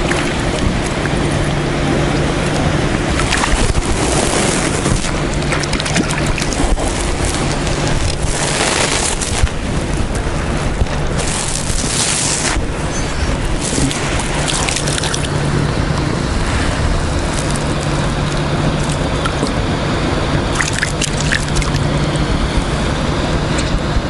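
A hooked trout splashing at the surface as it is played and drawn in to the bank, in a few short bursts, the biggest around the middle. Under it runs a steady low hum that comes and goes.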